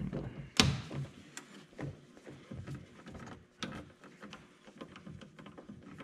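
Hands working small plastic parts and wiring: a sharp click about half a second in, then scattered light clicks and rustles.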